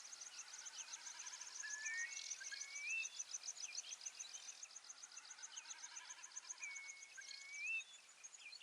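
Faint insect trill, a fast even run of high ticks, with a bird giving a rising whistled call twice, about a second in and again near the end.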